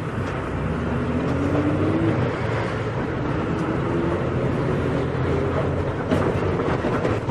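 Volkswagen Volksbus 17.230 EOD city bus engine pulling under way, heard from inside the bus. Its pitch climbs, drops back about two seconds in, and climbs again.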